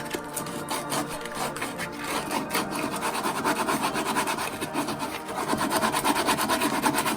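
Rapid, continuous scraping and rubbing in hand work on wood and epoxy, growing louder about three seconds in, over background music.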